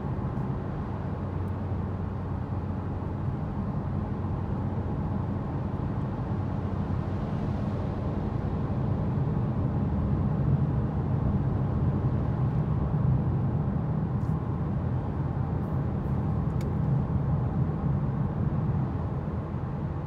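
Steady drone of a car driving through a road tunnel: tyre and engine noise heard from inside the car, a low, even hum that swells slightly around the middle.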